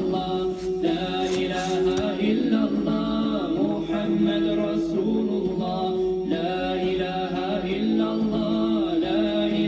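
Background music: an Arabic Islamic chant (nasheed) sung a cappella, with long held melodic lines.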